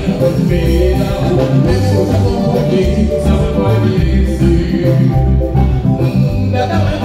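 Live band music at a sound check, played through the PA, with a strong bass line under pitched instruments and some singing.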